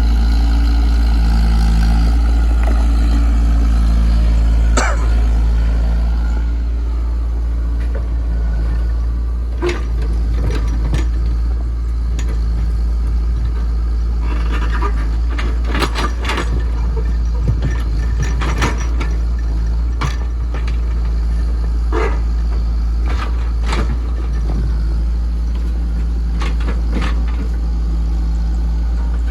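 Komatsu PC68 mini excavator's diesel engine running steadily, its pitch shifting up and down as the machine is worked. Through the second half come repeated sharp knocks and clanks.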